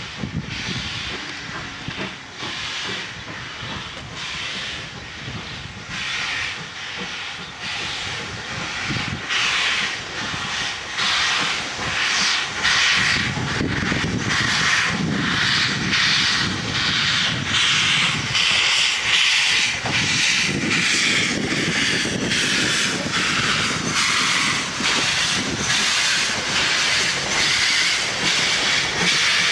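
GWR 4500-class prairie tank locomotive 4555 working under steam, its exhaust chuffing in a steady, evenly spaced beat over the hiss of open cylinder drain cocks. The sound grows louder about halfway through as the engine draws close.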